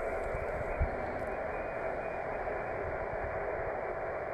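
Yaesu FT-450D HF transceiver's speaker giving a steady hiss of band noise on 40 metres, narrowed by the receiver's filter so that it sounds muffled. There is a brief low thump just under a second in.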